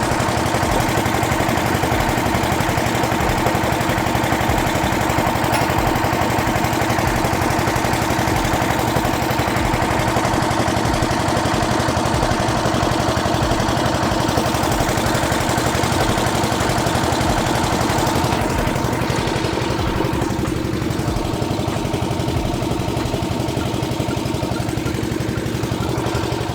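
An engine or motor running steadily at idle with a constant hum; the higher hiss thins out about two-thirds of the way through.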